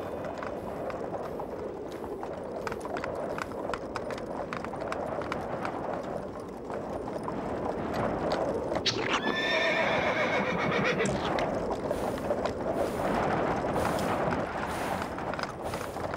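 Horse's hooves clip-clopping steadily, with a horse whinnying once about nine seconds in, the call rising and then held for about two seconds.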